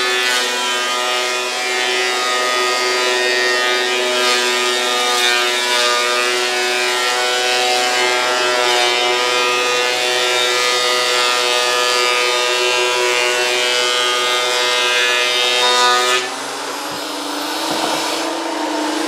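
Makita 2012NB portable planer thicknesser running under load as a board feeds through: a steady motor whine with the rasp of the cutter block planing wood. About 16 seconds in, the board clears the cutters, the cutting noise stops, and the motor's pitch climbs back as it runs free.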